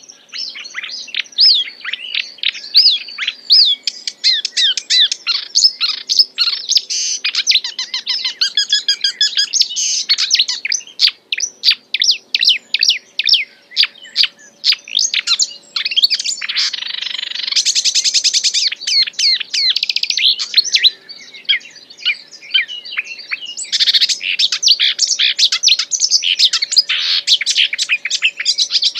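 A songbird singing a fast, non-stop song of rapid, varied, sweeping notes packed with imitated calls, including a rough, scratchy passage and a high buzzy one about halfway through.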